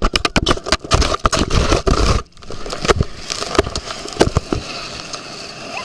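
Wind and water spray buffeting a small handheld camera on a tube towed at speed behind a motorboat: a dense run of crackles and knocks on the microphone for about two seconds, a brief break, then scattered knocks.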